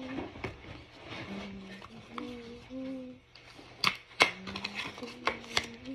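Foil Pokémon booster pack being torn open by hand: two sharp rips about four seconds in, then crinkling. Between them a voice hums a few short held notes.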